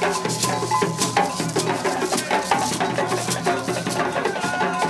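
A parade band playing loud, percussion-heavy music: rapid, continuous drum and shaker-like hits with a few held tones over them.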